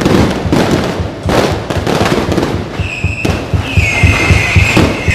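Strings of firecrackers going off in a dense, continuous crackle of sharp pops. About three seconds in, a high held tone joins over the crackle.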